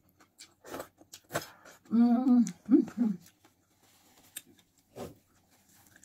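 Eating sounds at a plate: a few sharp mouth clicks and smacks, then a short two-part vocal murmur about two seconds in, then soft rustling of a paper tissue being crumpled as hands are wiped.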